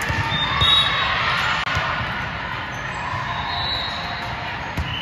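A ball bouncing repeatedly on a gym floor, irregular low thuds, with a few short high squeaks over a steady background hum of the hall.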